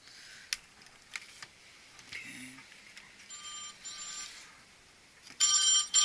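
Mobile phone ringing: a buzzing electronic ring tone in short pulses, faint around the middle and much louder near the end. A few light clicks of hand tools come before it.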